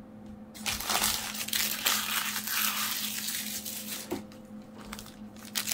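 Plastic wrapper of a 2022 Topps Series 1 baseball card pack crinkling as it is handled and opened. The crinkling starts about half a second in, is densest for the next three seconds, dies down, then picks up again with a few crackles near the end.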